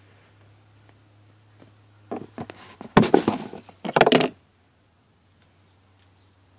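Hard plastic clicks, then two short bursts of clattering knocks about three and four seconds in, from a car glove box being worked as its damper arm is unhooked from its pin.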